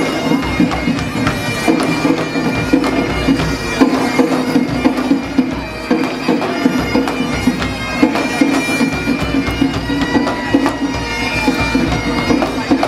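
Bagpipes playing a tune over their steady drone, with a drum beating along in an even rhythm.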